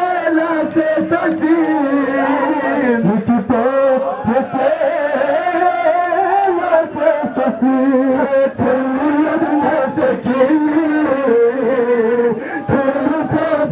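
Crowd of male mourners chanting an Urdu noha in unison, a continuous melodic line, with the slaps of chest-beating (matam) scattered through it.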